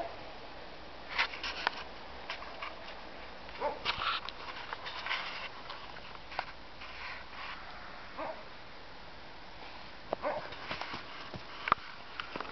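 German shepherd puppy giving a few short, separate whimpers, with crunching steps in snow between them.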